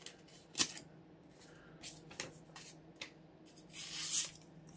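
Faint handling sounds of a freshly stropped pocket knife having its edge tried for sharpness: a few light clicks and taps, the sharpest about half a second in, and a short rubbing swish near the end.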